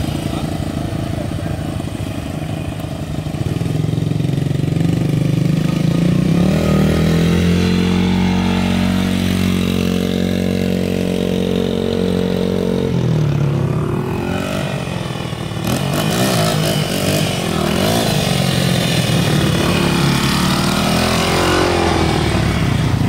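Small dirt bike engines running and being revved as the bikes ride along the street. The engine pitch rises about three to four seconds in, holds steady for several seconds, drops sharply about thirteen seconds in, then climbs and wavers again.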